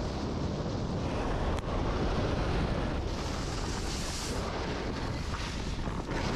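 Wind rushing over an action camera's microphone as a snowboard slides over snow, with a louder hiss of the board's edge carving and spraying snow about three to four seconds in.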